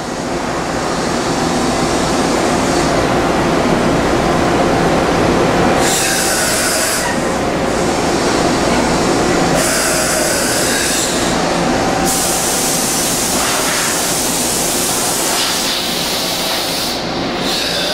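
Okuma MC-50H horizontal machining center running a manual pallet change: a steady, loud mechanical running noise, with several bursts of hissing that come and go, the longest in the second half.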